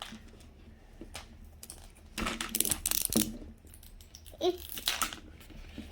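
Plastic zipper strip being pulled off a Mini Brands toy capsule: ratchety crackling, loudest from about two to three seconds in, with a few more clicks near the end.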